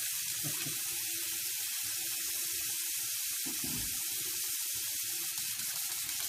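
Bathroom faucet running in a steady stream into the sink basin.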